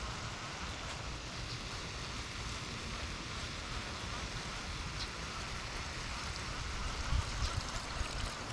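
A baitcasting reel being cranked as a buzzbait is retrieved across the water, under a steady hiss and low rumble of wind on the microphone. Low thumps pick up near the end.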